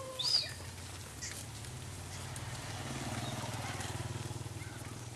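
Outdoor ambience: a low engine hum that swells and fades in the middle, and a short high chirp from a bird near the start.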